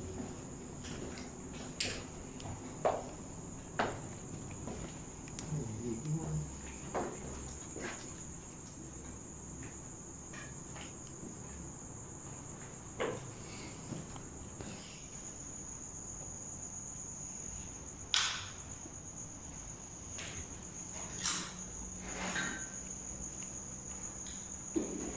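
Crickets chirring in a steady high trill, with scattered short knocks and footfalls on debris.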